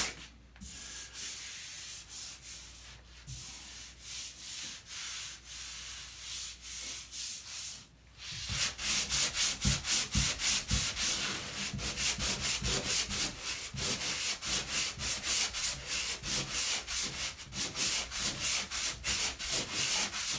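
Hand drywall sanding block rubbing back and forth over dried spackle on a wall patch in quick, even strokes, taking down excess compound and a ridge so the patch lies flush. The strokes are softer for the first several seconds, then louder from about eight seconds in.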